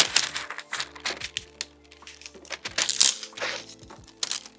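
A sheet of baking parchment being folded and creased by hand, crackling and rustling in irregular bursts. The loudest come right at the start and again about three seconds in, over background music.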